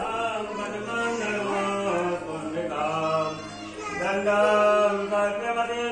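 Voices chanting a Hindu devotional mantra in a sung melody with long held notes, louder about four seconds in.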